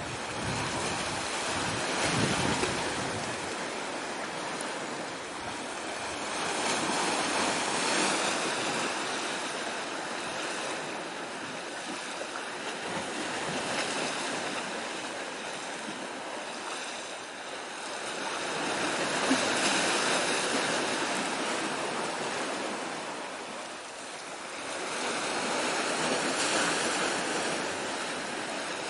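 Sea waves washing onto the shore, a rushing sound that swells and fades in slow surges about every six seconds.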